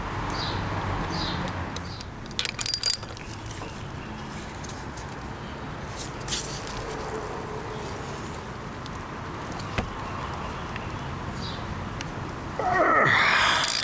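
Light metal clinks and clicks as a chain tool and calipers are handled on a motorcycle chain's master link, with a short cluster of clinks a few seconds in. Near the end there is a louder rasping sound that drops in pitch.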